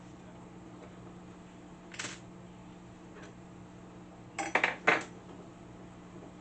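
Metal parts clinking against each other: one light clink about two seconds in, then a quick run of three or four louder clanks near the end.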